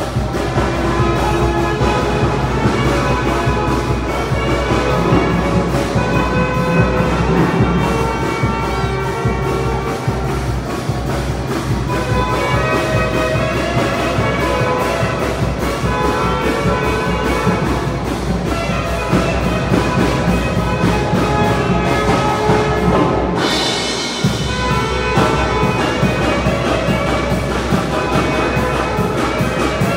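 Tamborazo band playing a lively tune: trumpets and trombones over a bass drum.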